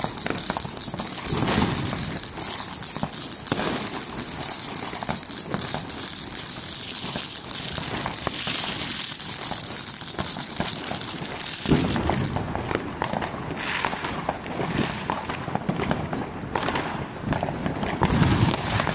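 Ground firework fountain spraying sparks: a dense hiss with rapid crackling. The high hiss thins out about twelve seconds in, and after that lower pops and bangs come through more strongly.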